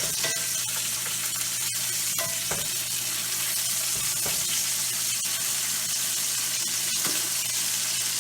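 Ribeye steaks searing in a hot skillet of oil and butter: a steady sizzle with scattered pops of spattering fat.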